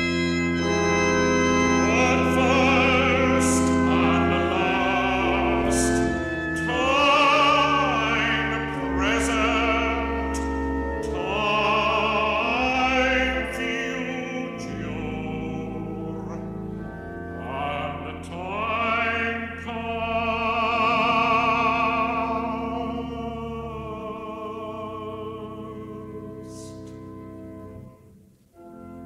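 Operatic tenor singing a classical art song with wide vibrato and long held notes over sustained instrumental accompaniment. The music dips to a brief pause near the end.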